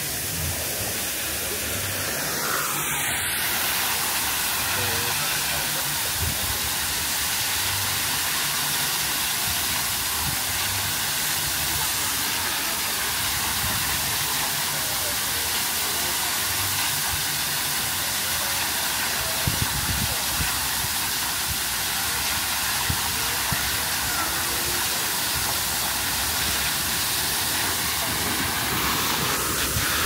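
Water rushing steadily along the water slide's runout lanes, an unbroken hiss that stays level throughout.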